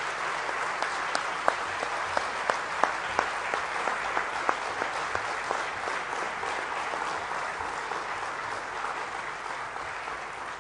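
Audience applauding: dense, steady clapping, with a few sharper single claps standing out in the first few seconds.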